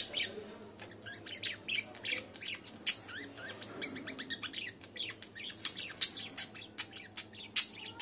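Pet budgerigars and finches chirping together: a busy, continuous stream of short, high chirps, with a couple of louder, sharper calls.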